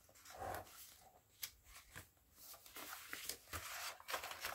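Pages of a handmade hardcover junk journal being turned and a fold-out page opened by hand: faint paper rustling and brushing with a few small clicks.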